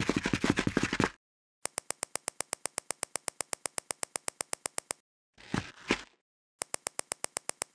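Clicking sound effects laid over a LEGO stop-motion build. A busy run of clicks stops about a second in. Then come rapid, evenly spaced clicks, about ten a second, in two runs, with a short scraping double sound between them.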